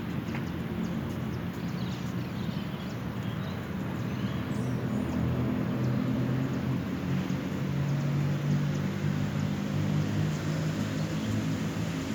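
Steady low hum of a motor engine, a little louder after the middle, over outdoor background noise with a few faint bird chirps.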